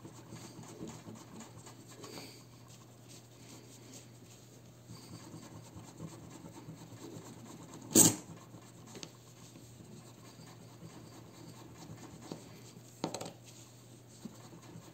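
A soft eraser rubbing on a silver 5-franc Semeuse coin, a faint steady scratching as the tarnish is rubbed off. A single sharp click about eight seconds in is the loudest sound, and a lighter click comes near the end.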